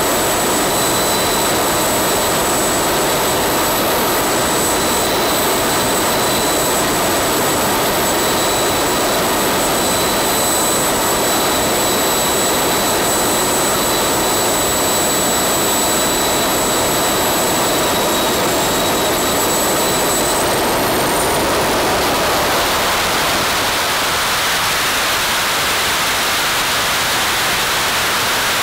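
Small RC turbine jet engine running on biodiesel, idling with a steady high-pitched whine over a rushing exhaust. About twenty seconds in, the throttle opens and the whine rises sharply as the turbine spools up toward full power, leaving a broad rushing roar.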